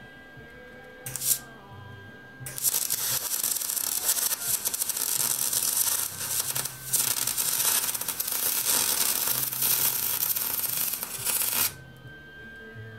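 Electric arc welder crackling as a bead is laid on a steel bracket: a brief strike about a second in, then steady crackling for about nine seconds with a short break near the middle, cutting off suddenly near the end.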